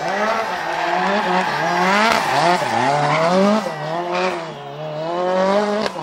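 Renault 5 Turbo rally car's engine revving hard through a bend. The revs climb and fall again and again as the throttle is worked, with a deeper drop and climb a little before the middle.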